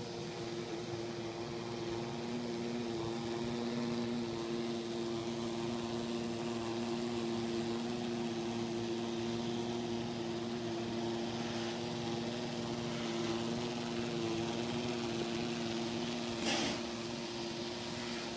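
Neato robot vacuum running on carpet with a steady motor hum. A single sharp knock comes near the end.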